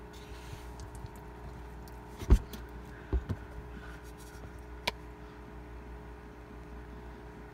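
A steady low hum with a few dull knocks from the recording phone being handled: the loudest about two seconds in, two close together a second later, and a sharper click near five seconds.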